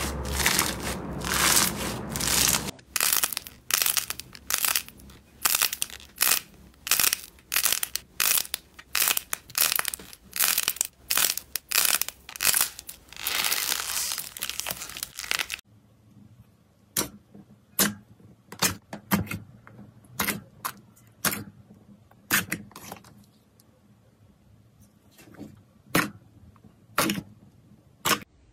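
Slime being squeezed and pressed by hand, making crackling, crunching squelches: a dense crackle at first, then a steady run of presses about twice a second, then after about fifteen seconds a much quieter stretch of scattered sharp clicks and pops.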